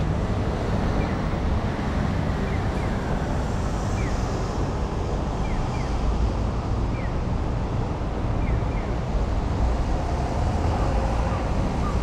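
Steady city ambience: a constant low rumble with a broad hiss, typical of traffic and town noise heard while walking, with faint short chirps coming every second or so.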